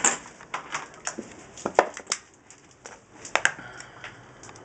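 Handling noise: a few sharp clicks and knocks with light rustling as a mains plug and its orange flex are handled near a wall socket.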